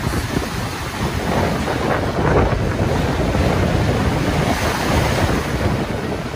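Lake Michigan waves breaking and washing up on a sand beach, with wind buffeting the microphone in a low rumble. One wave comes in louder about two seconds in.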